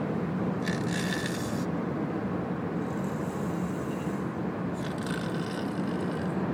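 A man snoring: two long snoring breaths about four seconds apart, over a steady low rumble.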